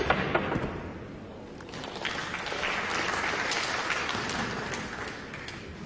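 Pool balls clicking as a shot is played, then the audience applauding, the applause building about two seconds in and dying away near the end.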